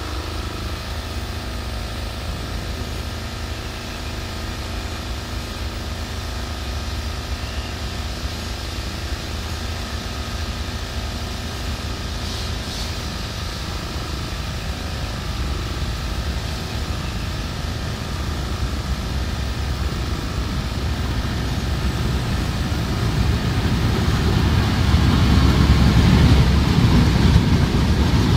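Diesel-hauled passenger train's low engine rumble running steadily, growing louder over the last third.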